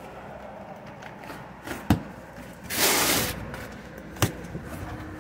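A box cutter slitting open a taped cardboard box: a sharp tap about two seconds in, a short rasping rip of tape and cardboard around three seconds in, and another tap near the end.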